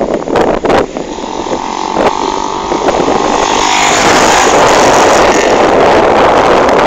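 Yamaha Fazer 250 single-cylinder motorcycle engine running with a steady tone. From about three and a half seconds in, loud rushing wind noise on the microphone takes over.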